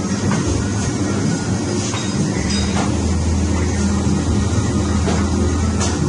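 Film lamination machine running: a steady low hum of its motor and rollers, with a few faint clicks.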